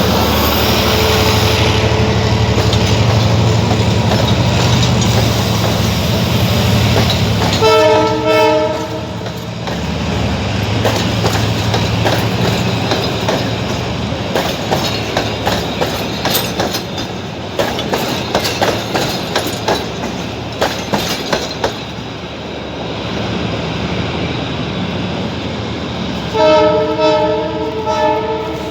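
A commuter train running, sounding its horn twice: a short blast about eight seconds in and a longer one near the end. In between, the wheels clatter over the rail joints in a rhythmic clickety-clack.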